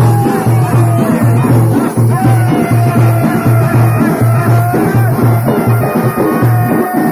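Folk dance music: a large double-headed drum keeping a steady low beat, about one and a half beats a second, under a high melody line that slides up and down in pitch.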